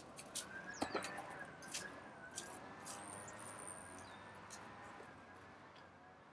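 Faint outdoor background: a few soft crackles and clicks in the first three seconds, under a faint high tone that wavers up and down throughout.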